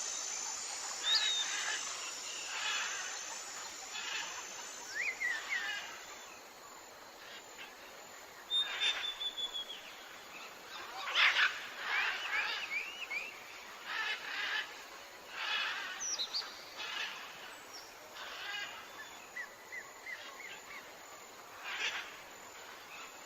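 Several birds calling and singing: short chirps, whistled and gliding notes, and quick runs of notes at irregular intervals.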